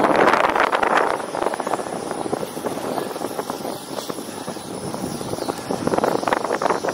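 Wind buffeting the microphone of a camera on a moving road bicycle, a rough rushing flutter that swells louder in the first second and again near the end.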